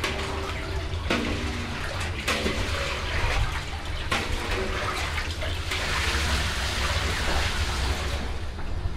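Water pouring from a hose into a large stainless steel basin, a steady splashing fill over a constant low hum.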